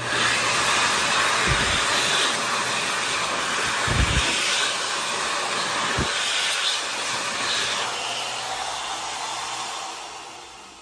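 Bradley WashBar's built-in hand dryer blowing air onto a hand: a loud, steady rush of air with a low motor hum under it. It switches on suddenly and dies away near the end.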